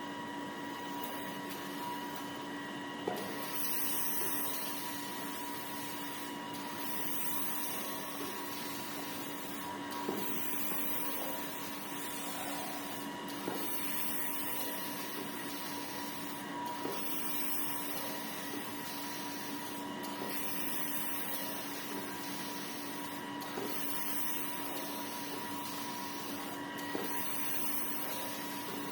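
Automatic band saw cutting machine for hand-towel paper rolls running with a steady motor hum and whine. A cycle repeats about every three and a half seconds: a high hiss of a couple of seconds, then a short sharp click.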